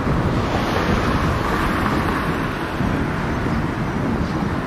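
Wind buffeting the microphone: a steady rushing noise with an irregular low rumble.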